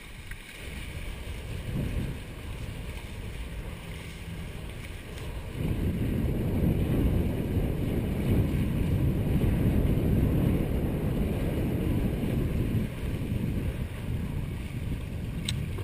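Wind buffeting the microphone and water rushing along the hulls of a Hobie 18 catamaran under sail, a steady noise that grows louder about five seconds in.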